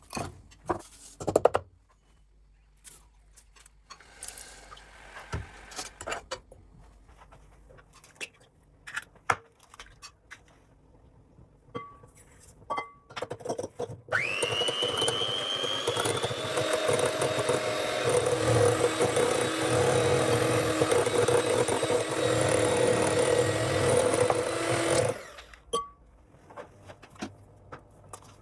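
Scattered light clicks and knocks, then about halfway through a small electric motor starts with a rising whine and runs steadily and loudly for about eleven seconds before cutting off.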